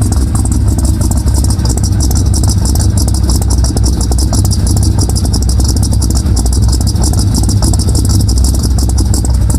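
Chevrolet K5 Blazer engine idling loudly through headers, a steady low rumble with a fast rattling tick over it. The owner says the headers have an exhaust leak.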